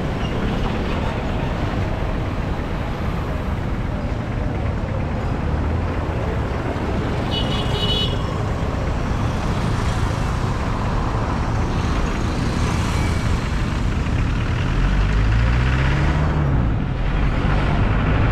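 Car driving through city traffic: steady road and engine noise, with a brief high-pitched horn toot about halfway through and an engine revving up and back down near the end.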